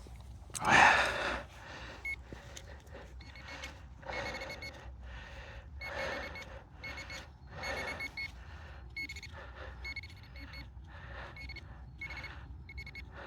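Metal detector beeping over a target in a freshly dug hole: short high beeps repeating in quick runs, with soil rustling as it is worked by hand.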